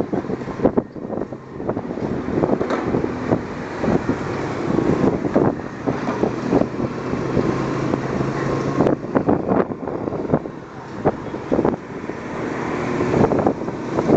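Motorcycle engine running while riding in traffic, with wind rushing and buffeting over the microphone.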